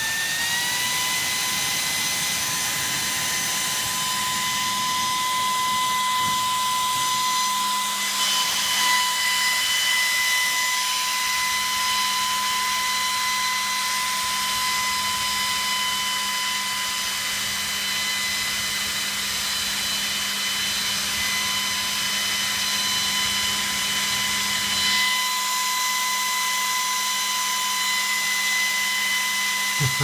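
Dell PowerEdge R710 server fan running at full speed, about 9,990 rpm, on a fan controller: a loud, steady whir with a high whine whose pitch rises slightly in the first second as it reaches top speed.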